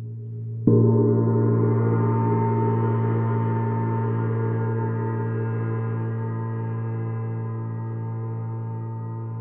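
Paiste Sidereal Moon planet gong struck once, just under a second in, over the ringing of an earlier stroke. It then rings on with a strong deep hum and many higher overtones, slowly fading.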